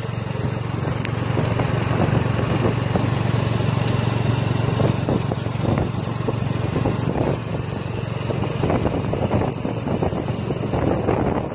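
Motorbike-drawn tuk-tuk under way: its engine runs with a steady low hum, over road noise and the frequent small rattles and knocks of the open passenger cart.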